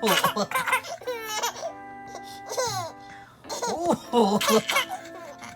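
A baby giggling and squealing in short bursts in reaction to a man's pretend coughs, over background music with steady held notes.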